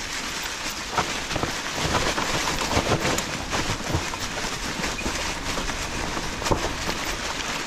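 Fat tires of an e-bike rolling over dry fallen leaves on a trail: a steady crackling rustle, with a few sharp knocks as the bike jolts over bumps.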